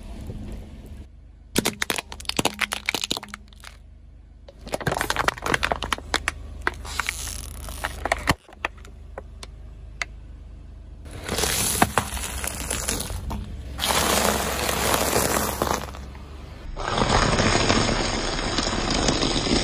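A car tyre slowly rolling over and crushing a run of objects on asphalt, heard as several separate spells of crackling and crunching with quieter gaps between them. The last, longest spell, near the end, is dry toast slices crunching and crumbling under the tyre.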